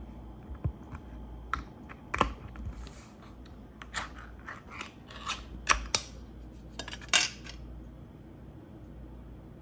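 Short metallic clicks, taps and scrapes, a dozen or so spread over about seven seconds, from the can of chicken luncheon meat and utensils being handled as it is opened and got out.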